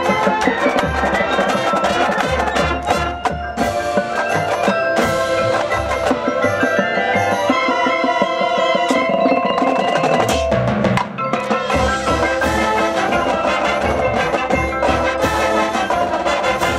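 High school marching band playing its field show live, with sustained ensemble chords over frequent drum strokes, deep bass-drum hits and front-ensemble mallet percussion; the music thins briefly about eleven seconds in.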